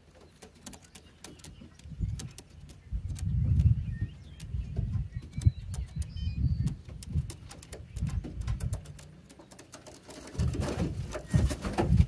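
Racing pigeons on a wooden loft landing board: low cooing that comes and goes, with scattered light ticks and taps. Near the end there is a louder burst of flapping as the birds go into the loft.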